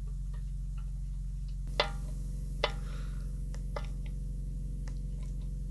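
Light metallic clicks and taps of a screwdriver and the small chrome screws being fitted into a chrome shift gate on a painted motorcycle gas tank. The two loudest clicks come a little under a second apart about two seconds in, with fainter ticks scattered after, over a steady low hum.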